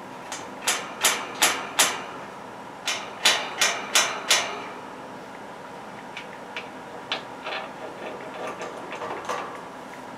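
Sharp knocks in two runs of five, each at about three a second with a short pause between the runs. Fainter scattered clicks and taps follow in the second half, over a steady low hum.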